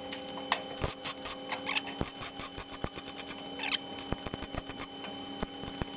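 MIG welder tack-welding a steel body panel: the irregular crackle and sputter of the welding arc, with a faint steady hum underneath.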